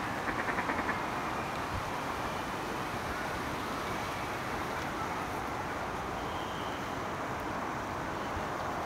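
Steady outdoor background rush, with a short, rapid chattering call from a duck in the first second.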